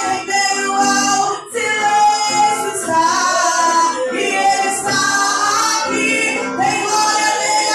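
Christian worship song: female voices singing a sustained melody over musical backing.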